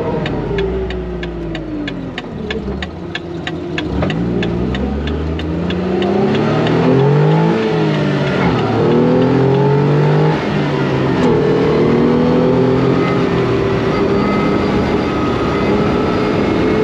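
Morgan Super 3's Ford three-cylinder engine heard from the open cockpit while driving, with wind and road noise. The revs fall over the first few seconds, then climb repeatedly as it accelerates and shifts up through the gears, and settle into steady running. A fast, even ticking sounds over the first few seconds and then stops.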